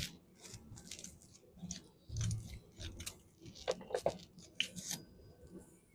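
Faint scattered clicks and light knocks of brake parts being handled while fitting new brake pads, with a duller knock about two seconds in.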